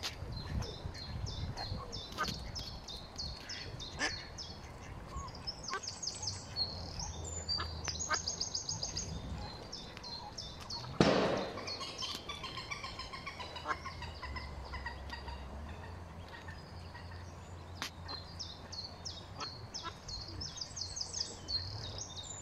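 Mallard ducklings peeping in fast runs of thin, high notes, with one loud quack from the mallard hen about halfway through.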